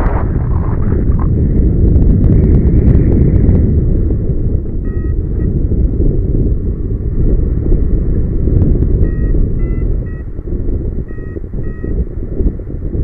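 Airflow buffeting the camera microphone during a paraglider flight, a loud, steady low rumble. A flight variometer beeps briefly about five seconds in and again in a run of short beeps near the end, some a little higher in pitch, which signals the glider is climbing in lift.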